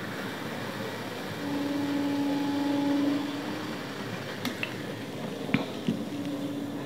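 Cola poured from a plastic bottle into a glass, fizzing, over a steady low hum. Between four and a half and six seconds in come a few sharp knocks as the glass and bottle are set down on the table.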